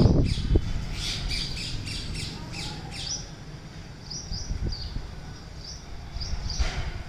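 Garden birds squawking and chirping: a rapid run of short, sharp calls over the first few seconds, then scattered chirps, with a louder call near the end.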